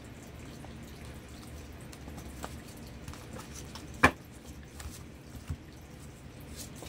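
Oracle cards being shuffled and handled by hand: faint scattered taps and rustles, with one sharp card tap about four seconds in.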